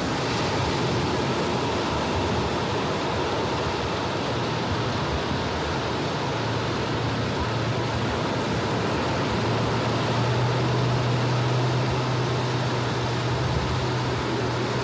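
Steady wash of small waves breaking on a beach. A low engine hum joins it about four seconds in, growing louder toward the last few seconds.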